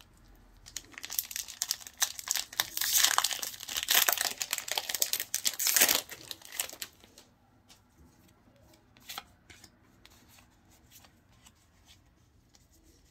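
Foil wrapper of a Pokémon trading card booster pack crinkling and tearing as it is ripped open by hand, loudest a few seconds in. Then fainter, scattered clicks and rustles as the cards are handled.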